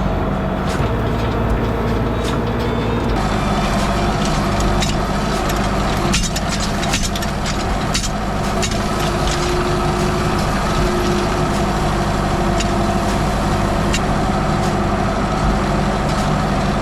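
Tractor engine running steadily while pulling a hay rake, its note shifting slightly about three seconds in. A spell of clicks and rattles comes through about six to nine seconds in.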